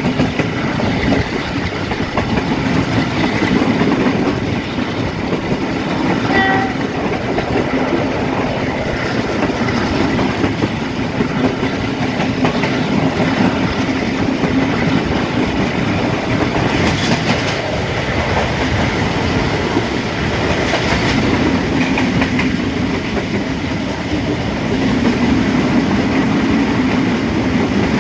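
Passenger train running at speed: a steady rumble and rattle of carriage wheels on the rails with a clickety-clack over the rail joints, and wind rushing past an open carriage doorway. A brief high tone sounds about six seconds in.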